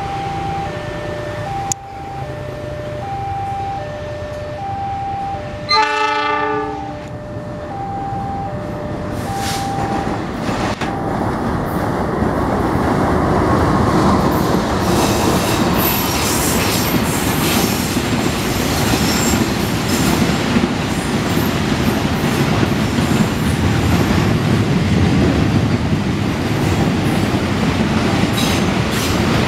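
Level-crossing warning signal alternating two tones about once a second, with a diesel locomotive's horn sounding once, briefly, about six seconds in. Then a freight train of fuel tank wagons passes close by with a growing rumble and clatter of wheels over the rail joints, staying loud to the end.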